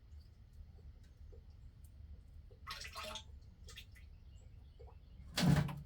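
Engine oil dripping from the drain of the plastic oil pan into a catch pan, in scattered faint drips, with a short rustle about three seconds in and a louder thump near the end.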